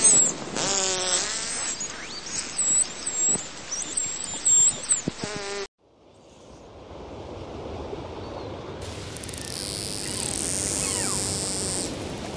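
Dolphins vocalizing underwater: rapid clicking, two buzzing pulsed calls and high whistles that slide up and down. About halfway through the sound cuts out suddenly. A hiss of water then fades back in, with a few faint whistles.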